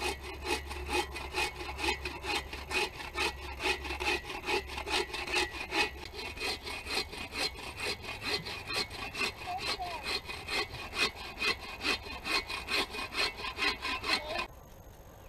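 Bow saw cutting into a log with steady, even back-and-forth strokes, cutting a notch in a trap timber. The sawing stops suddenly near the end.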